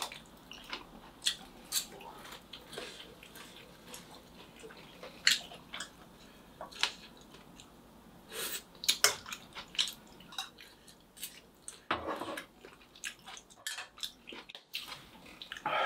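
Scattered sharp clicks and taps of metal tongs against a metal sierra cup, with chewing sounds in between.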